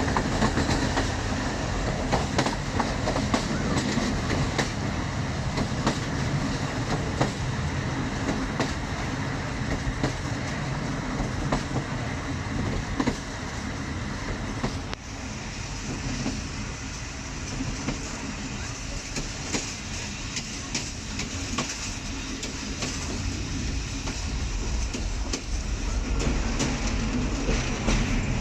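Passenger train coach running along the track, its wheels clicking over the rail joints amid a steady rumble and rattle. The level dips briefly about halfway through.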